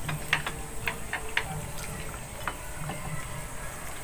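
Clicks and taps of people eating with their hands from ceramic plates: a quick run of about half a dozen in the first second and a half, then one more about two and a half seconds in.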